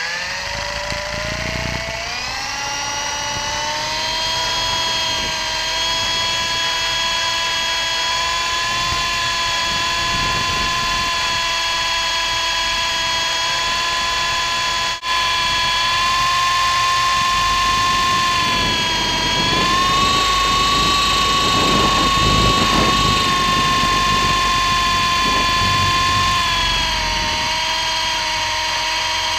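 MJX F45 RC helicopter's electric motor and rotor whining, heard from a camera strapped to its body. The pitch rises over the first few seconds as the rotor spools up for lift-off, then holds steady with small dips and rises. Gusty wind rumbles on the microphone, strongest about two-thirds through, and the sound cuts out for a split second about halfway.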